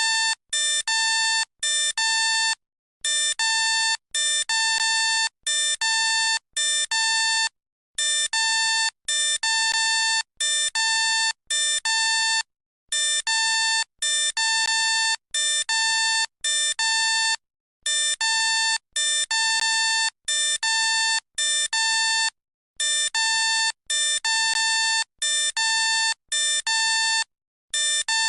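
Homemade electronic alert sound effect in the style of a Philippine Airlines alert. Short, steady, bright electronic beeps come in quick groups of about six, each group followed by a brief pause, and the pattern repeats evenly.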